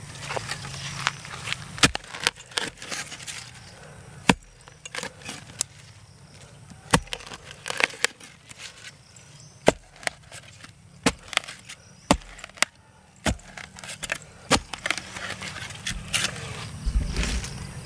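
Metal spade chopping into soil and leaf litter: a string of sharp, irregular strikes, often about a second apart.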